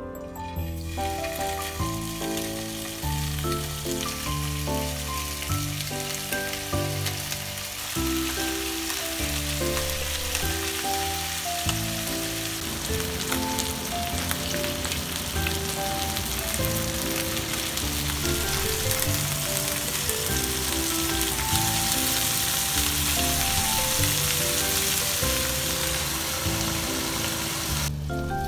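Chicken and green onion skewers sizzling in hot oil in a frying pan. The sizzle starts about a second in and grows louder as more skewers go in. Background music with a piano-like melody plays under it.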